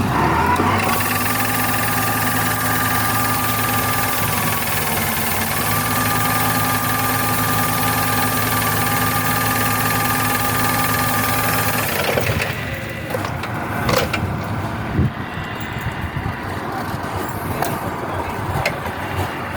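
The engine of a Berardinucci Tornado walk-behind machine runs at a steady speed, its pitch sagging briefly for about a second around the fifth second. About twelve seconds in, the steady engine note stops and is followed by irregular rattling with a few sharp knocks.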